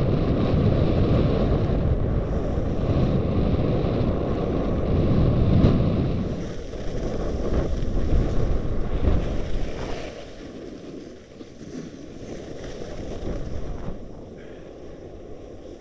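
Wind rushing over an action camera's microphone while skiing downhill, loud at first and dropping away about ten seconds in as the skier slows.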